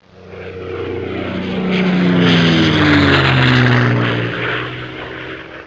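Aircraft flying past: it grows louder to a peak midway, its pitch drops as it passes, and then it fades away.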